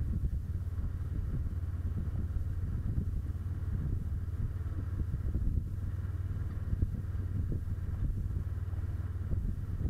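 Kawasaki Versys 650's parallel-twin engine running steadily while the motorcycle cruises, heard as a low, even rumble mixed with wind buffeting on the microphone.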